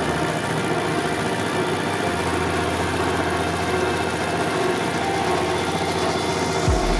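Old tractor's engine running steadily while the tractor drives along.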